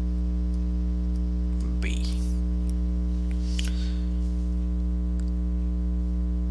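Steady electrical mains hum, a low drone with many evenly spaced overtones, running under the voice recording without change.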